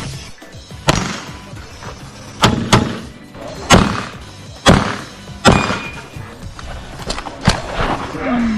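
Handgun shots fired at uneven intervals, about seven in all, two of them in a quick pair, each sharp crack trailing off in a short echo.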